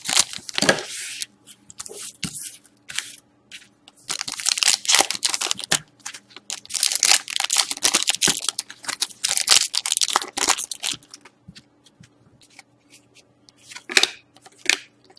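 Trading-card pack wrappers being torn open and crinkled, in several bouts of rustling and tearing with short gaps. Near the end it thins to a few faint ticks, then comes one last short crinkle.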